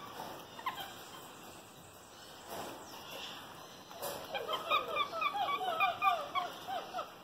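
Capuchin monkey calling while it eats fruit: a couple of single short chirps at the start, then from about four seconds in a quick run of short high chirps, about three or four a second.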